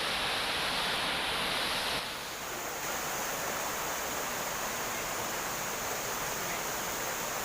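Steady rushing of a waterfall, which gets a little quieter and changes tone about two seconds in.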